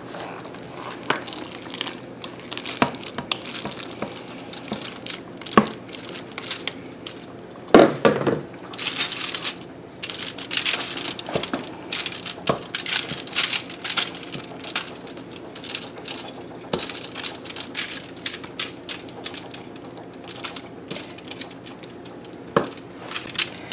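Raw ground-beef meatloaf mix being pressed and shaped by hand in a foil-lined glass baking dish: aluminium foil crinkling, soft squishing of the meat and scattered light knocks of a spatula against the dish, with a louder thump about eight seconds in.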